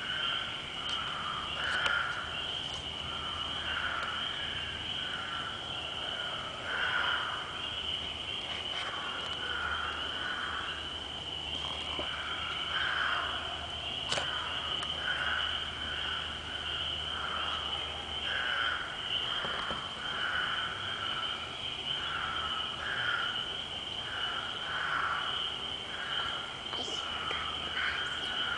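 Frogs calling in chorus: short calls repeating about once a second, over a steady high-pitched trill. The uploader takes them for big frogs.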